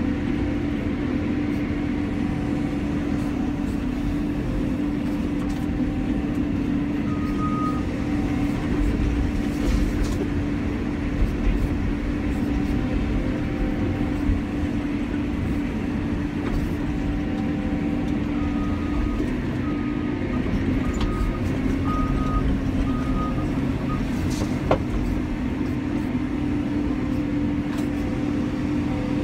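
Cat 320 excavator's diesel engine and hydraulics running steadily under working load, heard from inside the cab. A run of short high beeps, about one a second, sounds in the last third, and a few sharp knocks come from the bucket and boom.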